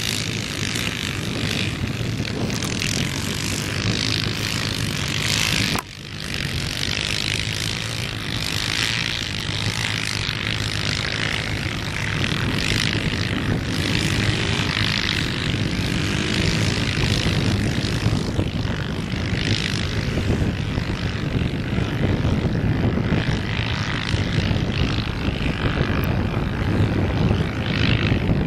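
Yamaha Ténéré adventure motorcycle engines running and revving as the bikes ride through sand, with an even rushing noise over them. The sound breaks off briefly about six seconds in, and the engine pitch rises a few times in the middle.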